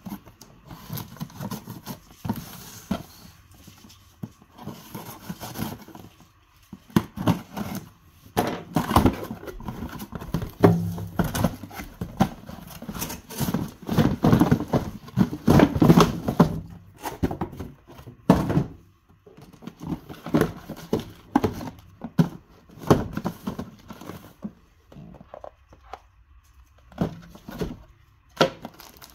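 A cardboard shipping box being opened and unpacked by hand: irregular rustling and scraping of cardboard and paper, broken by knocks and thumps as the box, its flaps and the shoebox inside are handled. The handling is busiest in the middle and thins out near the end.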